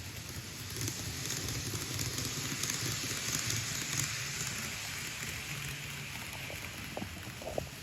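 Model train of the Hokuto limited express running on track, its motor and wheels making a hissing rumble that swells about a second in and slowly fades, with a few light clicks near the end. The motor has begun making an abnormal noise, which the owner takes as a sign of wear.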